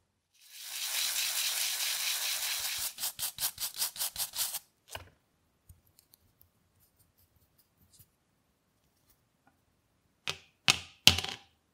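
Stiff brush scrubbing a wet rubber toy wheel: a steady hiss that breaks into quick strokes, about five a second, then faint small clicks. Near the end, three knocks as the rubber wheels are set down on cardboard, the last the loudest.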